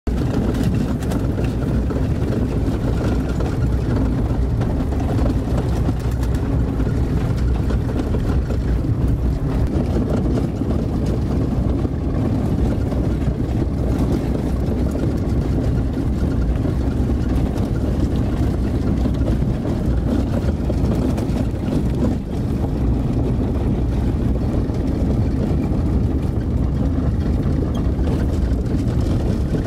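Steady low rumble of a vehicle driving on a rough, unpaved gravel road: engine and tyre noise heard from inside the cab.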